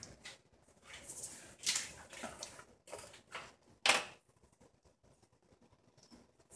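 Rustling and handling of a small jar of edible glitter, with one sharp plastic click about four seconds in as its cap is pulled off.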